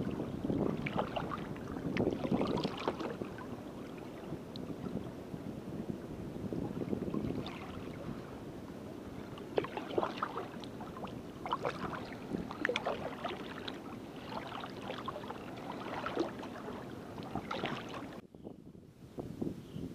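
Kayak paddle strokes splashing and dripping into lake water, with water lapping along the hull of a Perception Sport Conduit 12 sit-on-top kayak. The sound drops out briefly near the end.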